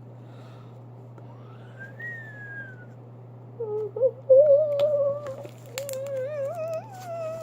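A girl humming a wandering tune to herself, starting about three and a half seconds in and sliding down in pitch near the end, over a steady low hum. A few short clicks come part way through.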